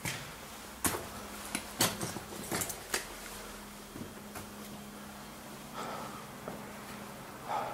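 Irregular sharp knocks and clicks of someone moving through a bare, rubble-strewn room, most of them in the first three seconds, over a faint steady hum.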